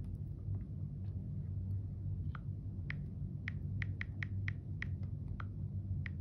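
iPhone on-screen keyboard key clicks as a password is typed. A couple of faint ticks come first, then from about two seconds in a quicker run of about a dozen short, crisp ticks, over a steady low hum.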